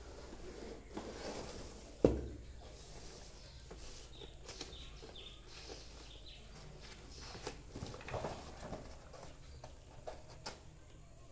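Cardboard packaging being handled: a doll's printed paperboard box slid out of a corrugated cardboard shipping box and turned over, with scraping and rustling, scattered taps, and one sharp knock about two seconds in.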